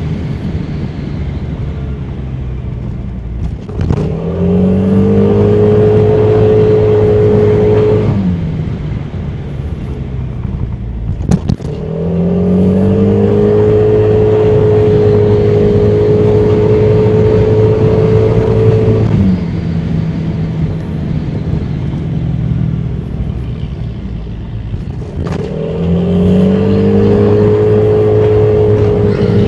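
Honda Forza 300 scooter's single-cylinder engine pulling away three times: each time the pitch rises, holds steady for several seconds, then drops back to a lower, quieter drone. A sharp click comes just before each pull.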